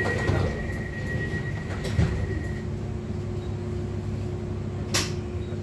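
Interior of an electric regional train standing at a station with its doors just shut: a steady high tone stops about two and a half seconds in, a knock comes about two seconds in and a sharp click near the end, over the carriage's steady low hum.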